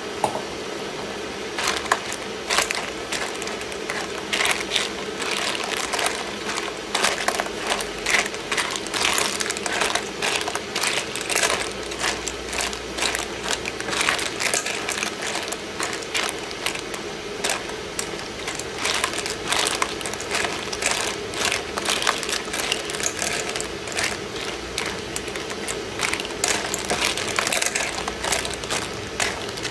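Clams in their shells clattering against each other and the pan as they are stirred with a spatula while cooking. The clicks are dense and irregular, over a steady low hum.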